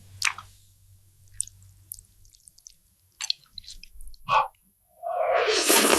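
Close-miked eating sounds: scattered small bites and chewing clicks, then a louder, longer stretch of crunching chewing starting about five seconds in.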